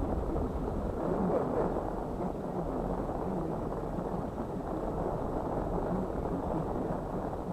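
Steady low rumbling and rushing noise aboard a sailboat under way.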